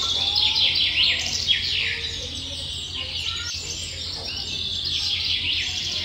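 Nestling songbirds begging for food: a rapid chatter of thin, high, downward-sweeping chirps, the sign of hungry chicks calling to be fed. The chirping thins out about two seconds in and picks up again near the end.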